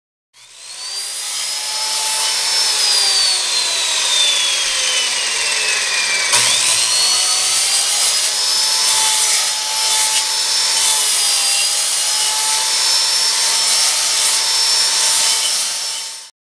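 Corded circular saw running while it is slid back and forth in a dado jig, milling wood out of a board for a half-lap joint. The motor's whine sags slowly under the cutting load, then a sharp click about six seconds in. After the click the whine climbs quickly back up to speed and holds, dipping a little as the blade bites.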